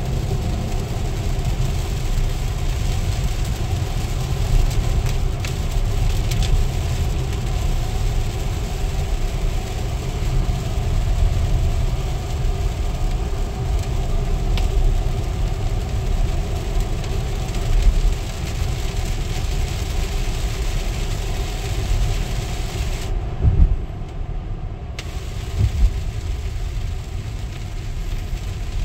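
Cabin noise of an electric Tesla Model X driving on a wet highway: a steady low rumble of tyres on the road with a hiss of water spray, and no engine sound.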